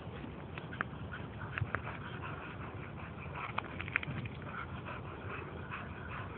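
English springer spaniels giving short, high, excited whimpers and yips, a few at a time, over a steady background hiss.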